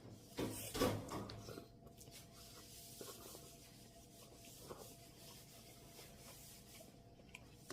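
Eating a cup of instant ramen: a few short scraping or slurping sounds in the first second and a half, then only faint small sounds.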